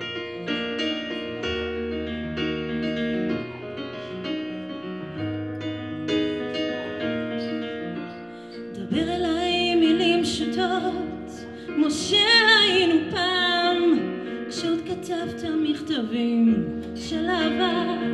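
Live band music: a Nord Stage keyboard plays a piano intro over upright double bass. About halfway through, a woman's voice comes in singing long notes with vibrato.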